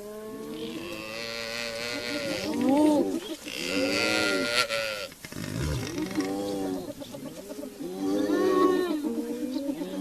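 Wild animals calling: a string of long, pitched cries that waver up and down, with a short break about five seconds in.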